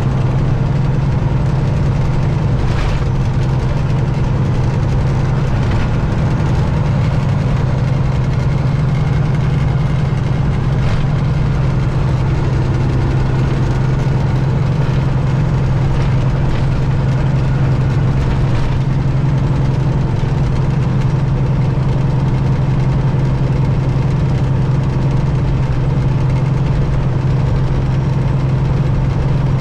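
Detroit Diesel engine of a Peterbilt 379 truck running at a steady, unchanging speed, a constant low drone.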